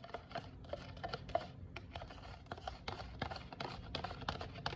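A spoon stirring a thick honey, garlic and lemon mixture in a small container, scraping and clicking against the sides several times a second.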